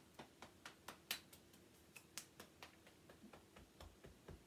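Hands tapping and patting down the arms and shoulders over a cardigan: a steady run of faint, quick taps, about four or five a second.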